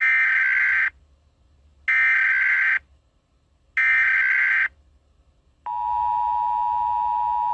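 Emergency Alert System header: three identical bursts of SAME digital data tones, each just under a second and about a second apart, encoding the alert. About five and a half seconds in comes the steady two-tone EAS attention signal that precedes the spoken message.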